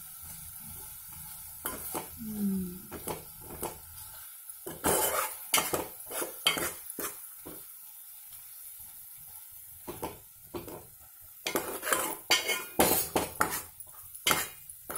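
Steel spoon scraping and clinking against the inside of a metal pot as softened tomato masala is mashed and stirred, in irregular strokes with a quieter pause midway. A faint sizzle comes from the pot underneath.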